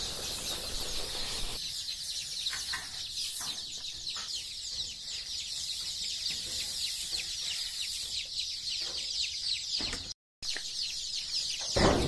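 A flock of ten-day-old desi chicks peeping continuously, a dense chorus of short, high, falling cheeps. A soft rustle of paddy husk being poured onto the litter comes under it in the first second or two. The sound cuts out for a moment near the end.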